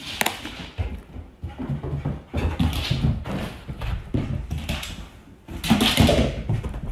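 A dog running about a room, its paws and claws clattering and thumping irregularly on a hard floor, with louder scuffling about two and a half seconds and six seconds in.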